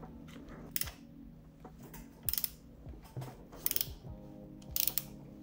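Kawasaki ZXR400 engine being turned over by hand to find top dead centre on compression: short bursts of rapid mechanical clicking, four times, about every second and a half.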